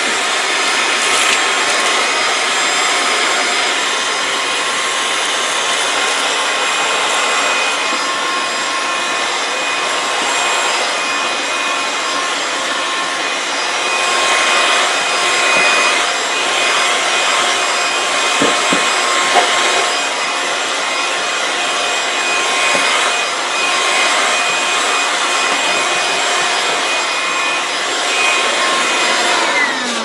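Loftek cordless handheld car vacuum running steadily with a high motor whine, its brush nozzle scrubbing over a carpeted floor mat. It is switched off at the very end and the motor whine falls as it winds down.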